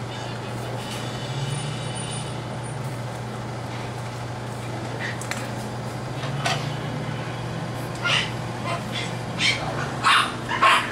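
English bulldog puppies giving short yips and whimpers, a few at first from about halfway and more often and louder near the end, over a steady low hum.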